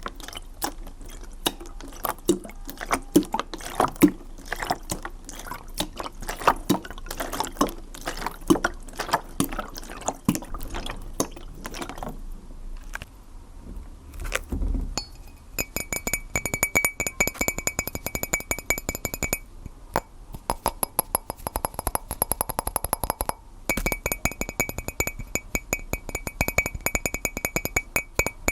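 Water bubbling and dripping in irregular sharp pops. After a short lull and a low thump about halfway, a dense fast crackle sets in with a steady high ringing tone over it, breaking off briefly twice.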